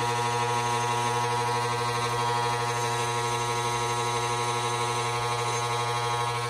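GBC coil inserter's electric motor running with a steady, even buzzing hum.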